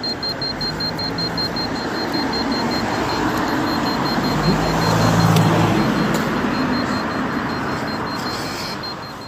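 Street traffic with a vehicle going by, its noise swelling to a peak about halfway through and then fading. A handheld radiation meter's rapid, high alarm beeping sounds at the start and again near the end.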